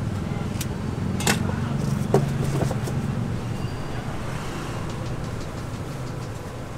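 Steady low engine hum, with a few sharp clicks and a short scrape in the first three seconds.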